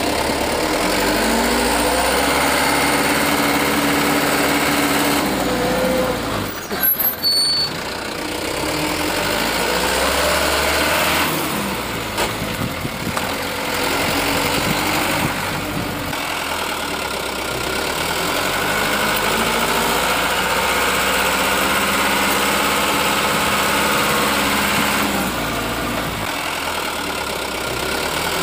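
Truck engine running and revving, its pitch rising and falling several times: a dubbed engine sound effect, not the plastic toy truck itself. A short burst of clicks and knocks comes about seven seconds in.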